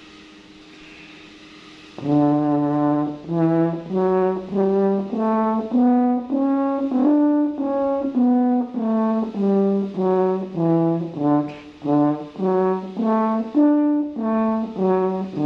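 Double French horn playing a one-octave A major scale from low A (written for horn in F), one sustained note at a time, up the octave and back down, then a shorter run up and down. The playing begins about two seconds in, after quiet room tone.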